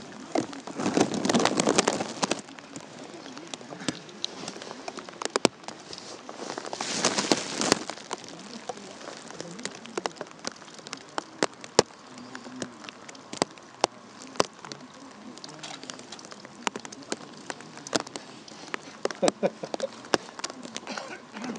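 Rain pattering close to the microphone, with many sharp scattered drop-clicks, swelling into a louder rush of noise about a second in and again around seven seconds in.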